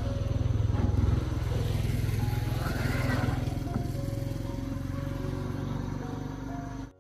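A motor vehicle engine running with a steady low rumble, with faint background music over it. It cuts off abruptly at the very end.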